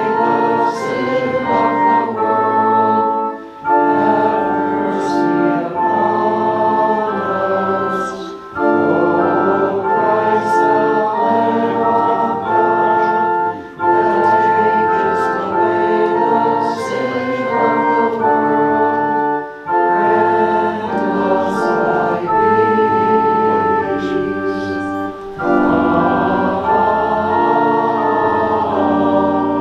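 Organ playing a slow hymn with a congregation singing along, held chords moving in phrases of about five seconds with short breaks for breath between them.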